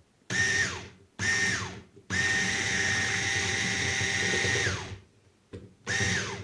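Electric hand mixer with twin wire beaters whisking eggs and sugar in a glass bowl, switched on and off: two short runs, then a steady run of about three seconds, then another start near the end. Each time it is switched off, the whine falls in pitch as the motor winds down.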